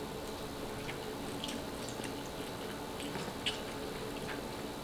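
Faint, wet mouth clicks and smacks of a person eating spicy noodles, a handful of small sharp ticks scattered over a low steady room background.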